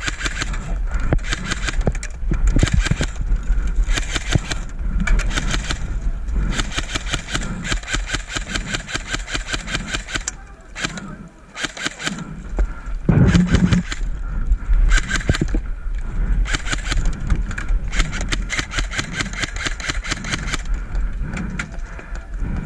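Airsoft guns firing in long runs of rapid full-auto clicks, with a pause about halfway through, over a low rumble of wind or handling on the microphone.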